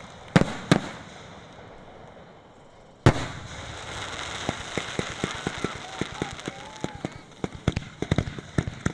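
Fireworks display: two sharp shell bursts near the start, then a louder burst about three seconds in, followed by a hiss and a long run of rapid crackling pops.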